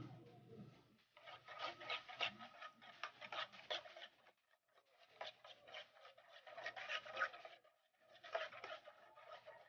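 A metal utensil beating a thin condensed-milk-and-egg batter in a black non-stick pot: faint, quick clicking and scraping against the pot in three spells of a few seconds each.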